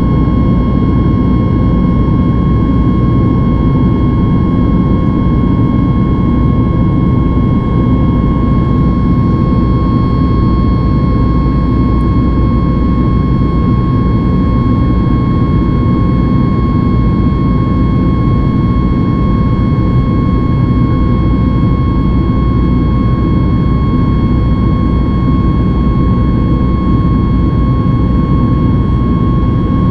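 Boeing 737 MAX 8's CFM LEAP-1B turbofan engines at climb power, heard inside the cabin: a steady, loud deep rumble and rush of air with a high whine holding one pitch.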